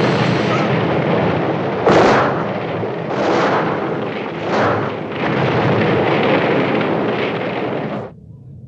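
Explosion sound effect: a dense rumbling blast with several louder bangs, near the start and about two, three and a half and four and a half seconds in. It cuts off suddenly about eight seconds in. This is spilled gasoline igniting from a dropped match.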